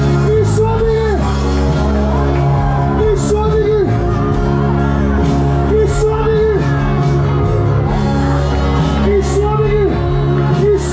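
Loud revival worship music: steady held chords under a voice repeating a short sung phrase about every three seconds, each phrase holding high and then dropping off sharply at its end.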